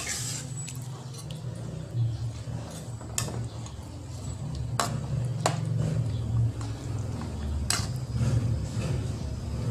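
Spatula clinking and scraping against a pan while chicken pieces in tomato sauce are stirred: a few sharp, irregular clinks over a steady low rumble.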